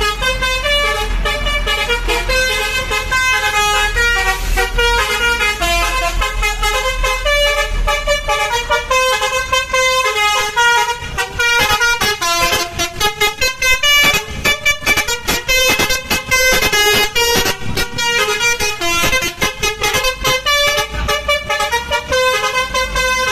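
Basuri multi-tone 'telolet' bus horn playing a fast tune of short stepped notes, several a second, with brief breaks between phrases.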